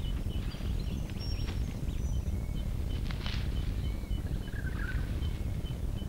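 Australian bush ambience: a steady low rumble of wind with birds calling, including a series of short high chirps about three a second and a few thin whistles, and a falling call near the end.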